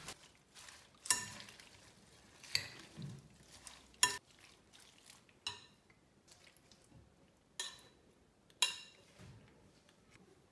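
A metal spoon clinking against a glass salad bowl as a pasta salad with leaves is tossed: about seven sharp, ringing clinks a second or so apart, with soft rustling of leaves and pasta between them.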